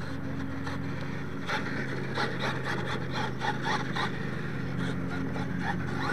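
Radio-controlled monster truck's motor and drivetrain whirring steadily as it drives over dirt, with short bursts of higher sound from about a second and a half in.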